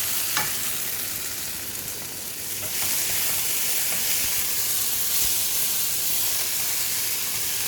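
Bitter gourd (karela) pieces sizzling in a hot, uncovered pan as their water cooks off; the frying hiss grows louder about three seconds in, with a light clink near the start.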